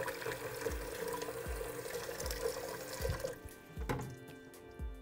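Tap water running and splashing as a vase is washed in a sink, cutting off about three seconds in. Background music with a steady beat plays underneath.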